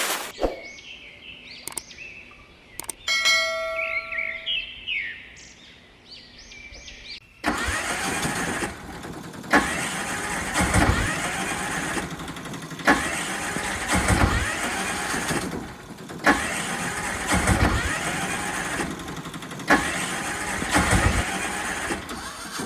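Short high chirps for the first few seconds, then a loud vehicle engine sound starts suddenly and surges and eases in repeated cycles, about every two seconds.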